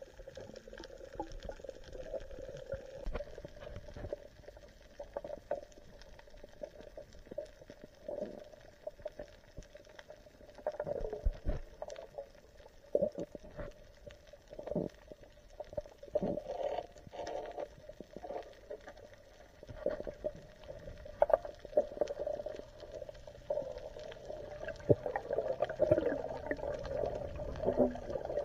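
Muffled underwater sound through an action camera's waterproof housing: water moving and bubbling, with many scattered clicks and knocks, growing louder near the end.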